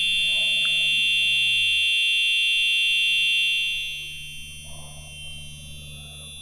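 EZGO RXV golf cart's electronic buzzer sounding one continuous, shrill tone, loud for the first three and a half seconds or so, then dropping to a lower level and carrying on.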